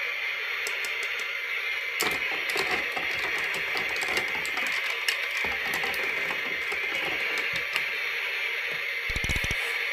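Plastic toy vegetables clicking and knocking against a small plastic toy pot as they are moved about in it, over a steady hiss.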